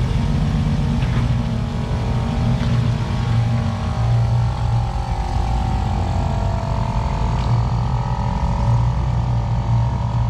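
Jeep CJ-7's engine running steadily at low crawling revs as it climbs out of a rock trench, with a wavering whine joining in about four seconds in.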